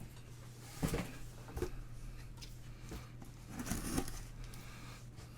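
Trading cards and foil pack wrappers being handled: a few scattered rustles and light taps, the loudest about a second in and near four seconds, over a steady low hum.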